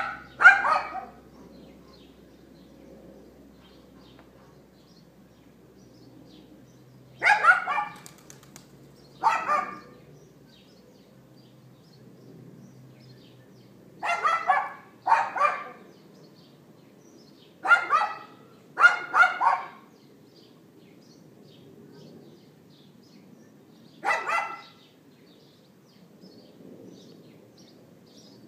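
Small dog yapping in short bursts of one to three barks, repeated every few seconds with pauses between, about eight bursts in all; the dog has been put out and left outside on its own.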